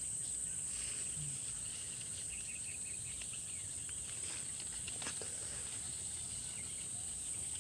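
Insects droning in one steady, high-pitched tone that never lets up, with a few faint short chirps.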